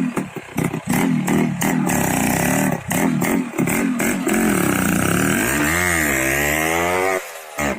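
Suzuki Shogun motorcycle engine being revved in short throttle blips. It then winds up in one long rev rising in pitch, which cuts off suddenly about seven seconds in.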